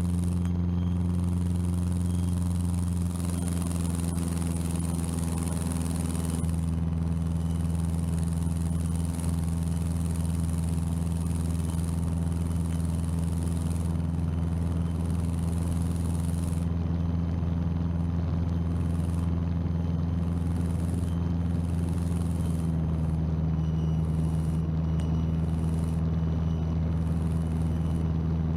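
Cessna 150's four-cylinder Continental O-200 engine and climb propeller droning steadily in a climb, heard inside the cabin.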